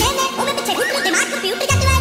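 Background music with many swooping, sliding pitches; a deep bass comes in near the end.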